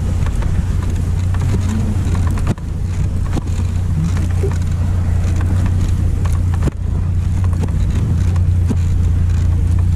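Steady rumble of wind and motion noise on the microphone of a camera riding a moving dog sled over a packed snow trail. The sound briefly drops twice, with a sharp click each time.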